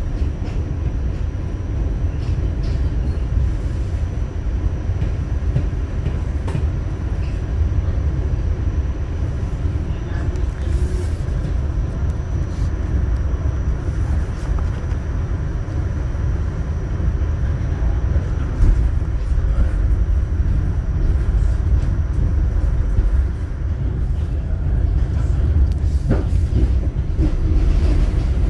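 New York City subway Q train car running, heard from inside: a steady low rumble of wheels on rail, with a faint high whine and a few sharp clicks from the track, the clearest about two-thirds through.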